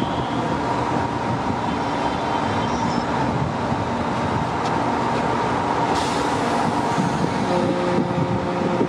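Electric locomotive standing at a station platform, its equipment humming with a steady tone over a continuous rushing background; a second, lower pair of steady tones joins near the end, and there is a single sharp click partway through.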